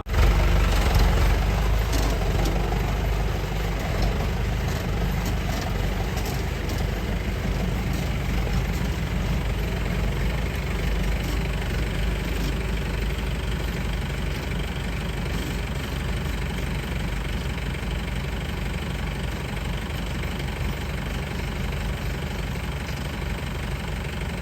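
A 4x4's engine running steadily at low revs as it crawls up a rocky track in four-wheel-drive low, first gear, with a few faint clicks in the first several seconds.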